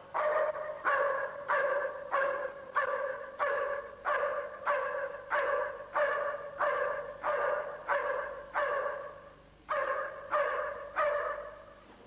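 A protection-trained police dog barking in a steady, even rhythm, about one and a half barks a second, with a brief pause near the end.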